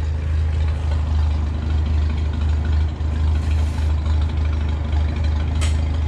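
An engine idling steadily with a low, even drone. A short hiss comes about three and a half seconds in and a sharp click near the end.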